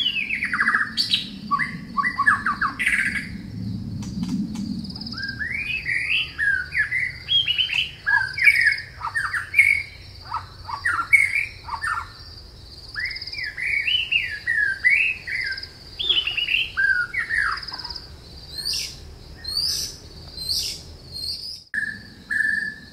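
Woodland songbirds singing: many quick, varied warbling phrases one after another, over a steady high, fast-pulsing trill.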